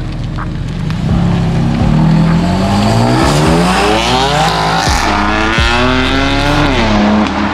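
BMW coupe accelerating hard from a launch, its engine note climbing in pitch, dropping at an upshift about five seconds in and climbing again before a second shift near the end.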